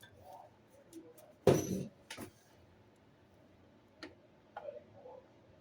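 A sharp clatter about one and a half seconds in, followed by a smaller knock, then a few faint clicks and taps: the sounds of handling parts and tools during plumbing work.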